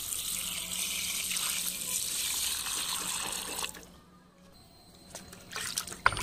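A stream of water pouring and splashing onto fish pieces in a metal basin, steady until it stops abruptly a little under four seconds in. Faint sloshing of hands in the water follows near the end.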